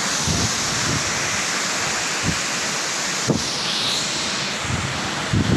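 Heavy rain falling, a steady hiss, with wind buffeting the microphone in a few short low gusts.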